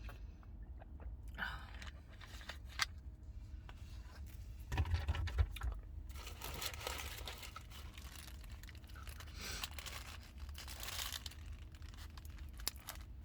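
Paper fast-food wrapper being handled and unwrapped, crinkling and tearing in several bursts, over a steady low hum.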